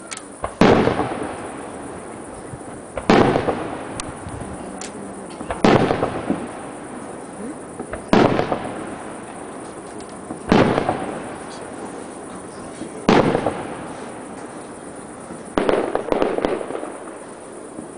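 Aerial firework shells bursting one at a time, seven sharp bangs about two and a half seconds apart. Each bang is followed by a long rolling echo that dies away before the next.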